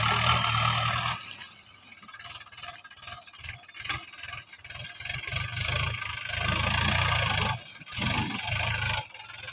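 Swaraj 843 XM tractor's three-cylinder diesel engine running under load as it hauls a heavy trailer of straw, its sound swelling and fading: loudest in the first second and again a little past the middle.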